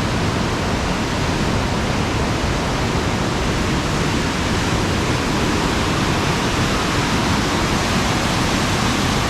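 Waterfall and creek in full flood after heavy rain: a loud, steady rush of water.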